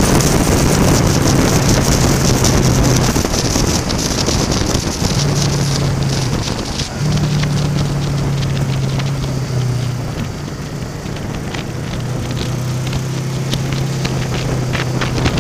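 Wind rushing past a helmet camera at road speed, over the low steady hum of a Honda VFR800 V4 engine that changes pitch several times and eases off in the last few seconds as the bike slows. Fine ticks of rain hit the camera throughout.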